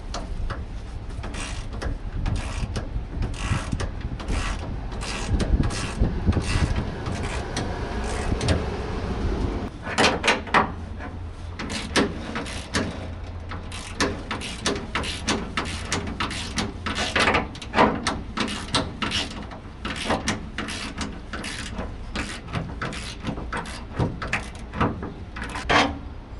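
Hand socket ratchet clicking in repeated runs of strokes as the panhard bar mounting bolts are worked loose. A low rumble in the background fades out about ten seconds in.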